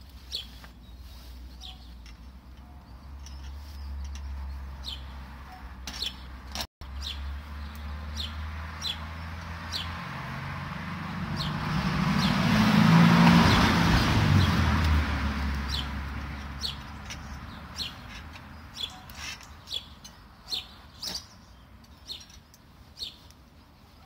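Small birds chirping in short, high, repeated calls, over a low steady rumble. Around the middle, a louder rushing sound swells and fades over several seconds and is the loudest thing heard.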